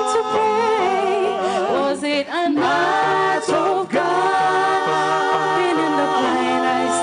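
A mixed men's and women's a cappella gospel chorale singing sustained chords in close harmony, with a short break and an upward vocal slide a little over two seconds in.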